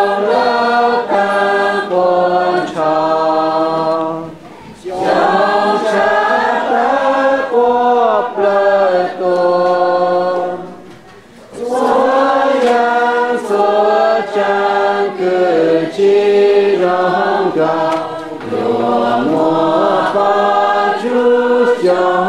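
A congregation of men and women singing a hymn together in Hmong, unaccompanied, in long sung phrases with short pauses for breath about four and a half and eleven seconds in.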